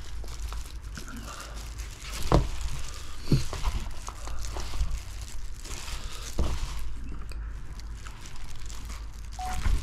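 A person eating spicy braised chicken with rice: chewing and crinkly rustling, with a few sharp knocks of utensils, the loudest about two and a half seconds in.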